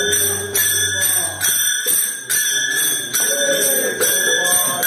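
Music with a steady jingling percussion beat, about two strokes a second, under a voice singing a wavering melody.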